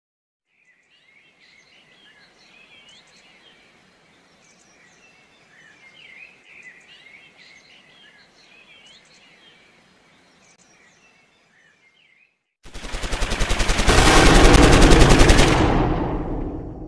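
Birds chirping and singing over a soft, steady hiss of falling water for about twelve seconds. Then a loud, rapid, machine-gun-like rattle starts abruptly and dies away over the last few seconds.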